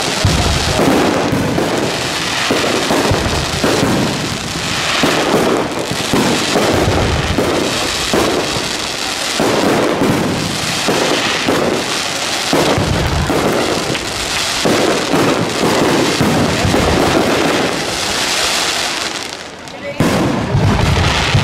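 Aerial fireworks display: shells launching and bursting one after another without pause, with a short lull near the end before the bursts resume.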